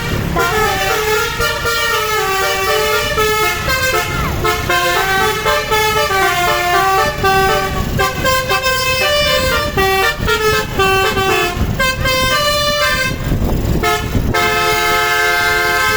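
Bus telolet horn, a Basuri multi-tone musical air horn, playing a quick tune of stepped tones. It ends in a long held chord about fourteen seconds in, over a low rumble.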